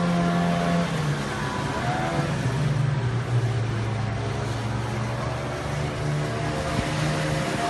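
Outboard motors running hard, driving inflatable boats across the water: a steady engine drone whose pitch drops about a second in and shifts a few more times as the boats turn.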